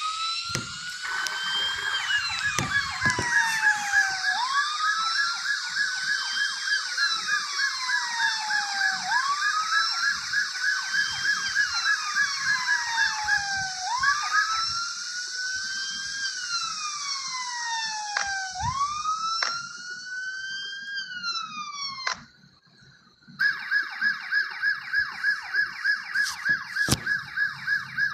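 Electronic ambulance siren sounding a wail that rises and falls about every four and a half seconds, with a fast pulsing tone beneath it. After a short break about three quarters of the way through, it switches to a pulsing tone of about three pulses a second.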